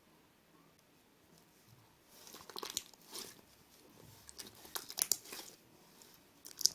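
Homemade slime being squeezed and stretched by hand, crackling with small sharp pops and clicks that start about two seconds in.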